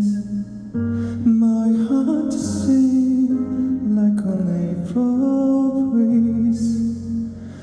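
Slow ballad music: piano accompaniment playing held chords and a gently stepping melody line.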